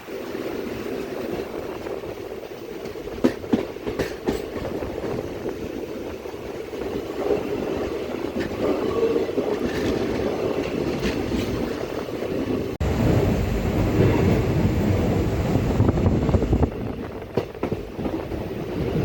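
Passenger train running, heard from on board: a steady rumble with a few sharp wheel clicks over rail joints a few seconds in. About two-thirds of the way through, a louder, deeper rumble comes in abruptly.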